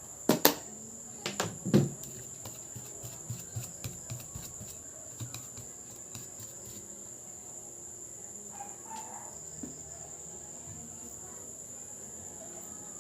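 Hard clicks and knocks from handling an opened laptop while its dusty insides are cleaned: loudest in the first two seconds, then lighter scattered taps. A steady high-pitched tone runs underneath.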